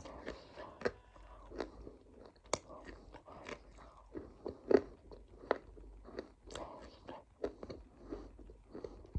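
A person chewing crunchy food close to the microphone: sharp crunches at an uneven pace, about one or two a second, the loudest a little under five seconds in.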